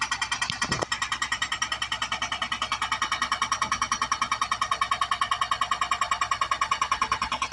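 Excavator-mounted hydraulic breaker hammering steadily at about ten blows a second.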